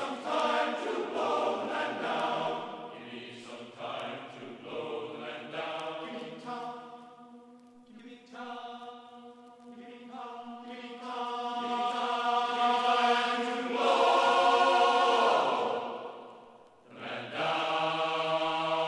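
Choir-like vocal music: several voices singing long held notes without words picked up, swelling loudest about two thirds of the way through, then breaking off briefly and starting again near the end.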